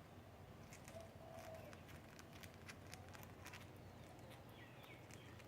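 Faint, irregular clicking of cockatiels grinding their beaks, with a couple of soft brief notes: the sign of relaxed, contented birds.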